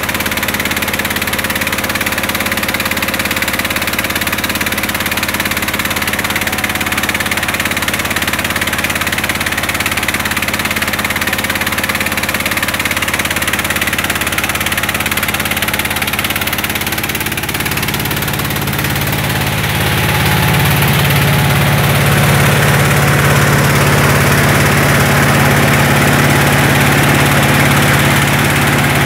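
Engine of a mobile rice-hulling mill running steadily as it hulls paddy, with a dense mechanical din over a steady hum. About two-thirds of the way through it grows somewhat louder, with a deeper hum.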